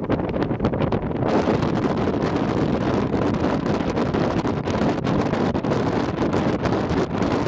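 Wind buffeting the microphone: a steady rushing, rumbling noise that turns brighter and hissier about a second in.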